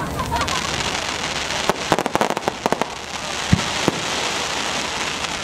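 Aerial fireworks bursting overhead: a steady crackling hiss, with a cluster of sharp cracks around two seconds in and a deep boom of a shell bursting about three and a half seconds in.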